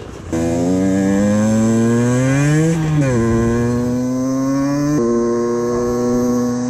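Suzuki Valenti SM 50's two-stroke 50cc engine pulling away, its pitch climbing for a couple of seconds, dropping at a gear change a little before the 3 s mark, then holding steady with another shift about 5 s in.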